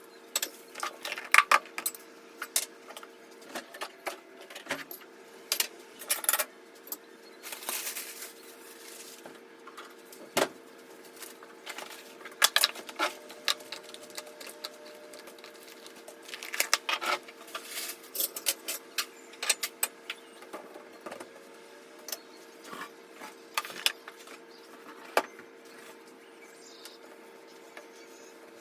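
Kitchen items and containers being handled and set down during fridge cleaning: irregular clinks, taps and knocks, some in quick clusters, over a faint steady hum.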